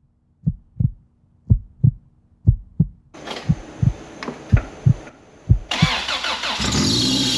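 Paired thumps like a heartbeat, about once a second. Then, about three seconds in, a freshly rebuilt Honda B18C1 four-cylinder is cranked over by its starter. It catches near the end and runs loudly on its first start, with the header not yet connected to the exhaust.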